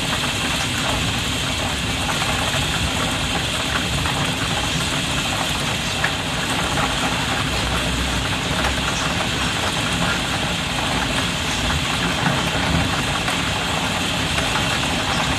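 Rain drumming steadily on a skylight, heard from the room beneath: a dense, even patter of drops with no lulls.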